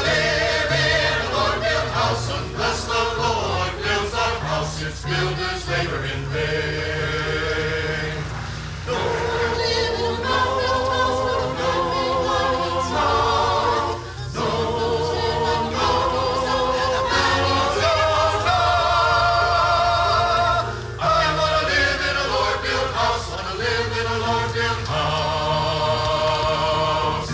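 Choir singing a gospel song in long held notes with vibrato, phrase after phrase with short breaks between.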